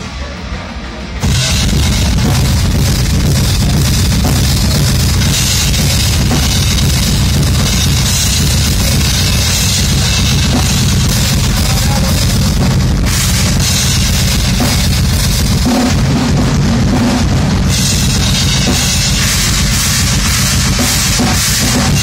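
Live rock band playing loud: drum kit with bass drum and cymbals, electric guitars and bass guitar. The band kicks in together about a second in, and the cymbals drop out briefly twice in the second half.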